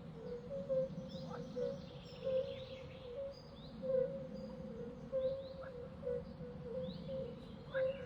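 Birds chirping in short, falling calls every second or so, over a steady low drone and a faint humming tone that pulses unevenly.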